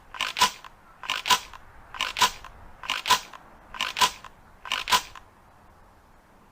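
Ithaca Model 37 pump-action shotgun's action being worked: six pairs of sharp metallic clacks, about one pair a second, stopping about five seconds in.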